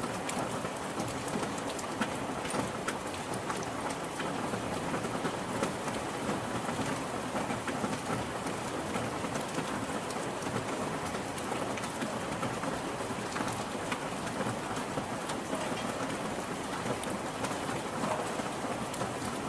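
Steady rain, a dense even hiss of falling water dotted with countless small drop ticks.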